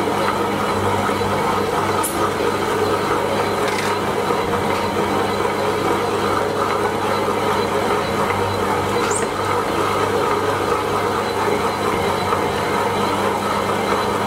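Premier compact tabletop wet grinder running, its stainless drum turning under the stone rollers as they grind soaked urad dal into idli batter: a steady grinding noise over a low motor hum. A few faint ticks come through, about two, four and nine seconds in.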